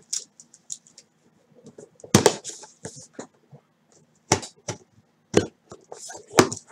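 Folding knife cutting open the wrap and seal of a cardboard trading-card box: scratchy slicing and scraping, with four sharp knocks as the knife and box are handled.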